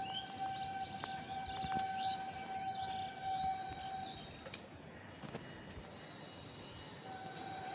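A steady tone, held on one pitch, stops about four seconds in and comes back near the end. Small birds chirp during the first few seconds.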